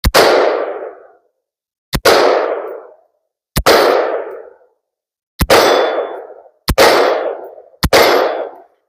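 Short-barreled AR-15 rifle firing 5.56 mm green-tip rounds: six single shots at uneven gaps of one to two seconds, each sharp crack trailed by about a second of echo.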